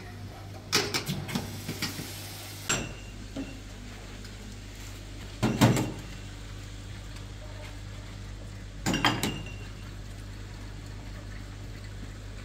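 Dishes clattering at a kitchen sink: a metal tray and a plastic basin knocked and set down in several short bursts of clatter over a steady low hum.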